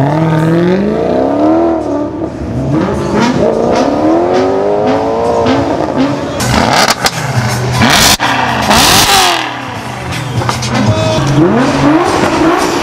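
Audi R8 engine revved again and again, its pitch rising and falling with each blip of the throttle.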